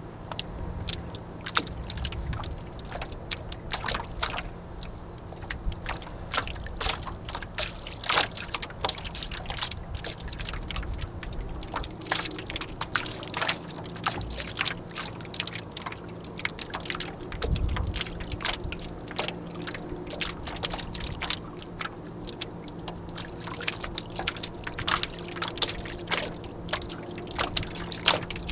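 Water slapping and splashing against the hull of a small Snark sailboat under way, in many quick, irregular splashes over a low rumble.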